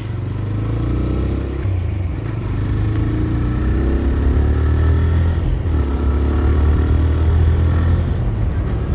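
TVS Raider 125's single-cylinder engine running under way while riding, over a steady low rumble. The engine note rises in pitch as the bike picks up speed, dips about halfway through, then rises again.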